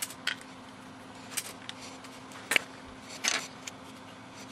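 The moulded plastic case of an Aim-TTI I-Prober 520 current probe head being pulled apart by hand. Scattered small plastic clicks and taps, the sharpest about halfway through, with a short scraping rattle soon after.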